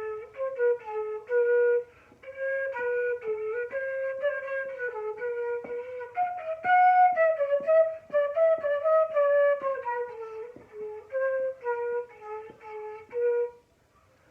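Flute played in its low register: a rhythmic tune of short, separately tongued notes, dipping lower and rising again, that stops just before the end.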